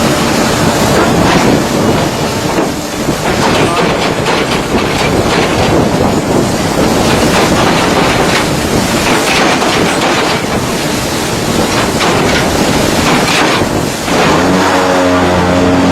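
Concrete block press machine running with a loud, continuous rattling clatter. Near the end a steady motor hum comes in on top.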